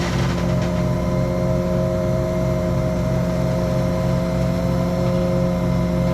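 Engine of a heavy machine running at a steady speed, a constant drone with a few steady tones above it and an even low pulsing.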